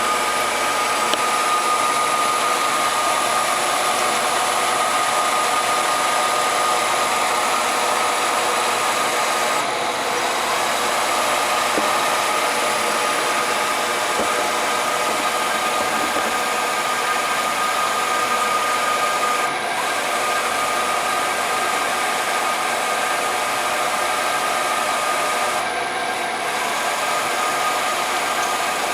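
Fryer MB-14 CNC bed mill's spindle running steadily at speed: a constant mechanical whir with a steady high whine. The sound shifts slightly three times, about a third, two-thirds and nine-tenths of the way through.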